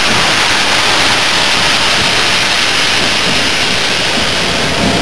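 The steam locomotive 60163 Tornado, a Peppercorn A1 Pacific, venting steam close by as it approaches at walking pace: a loud, steady hiss.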